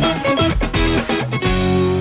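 Background music on guitar: a run of quick plucked notes, then a chord held from about one and a half seconds in.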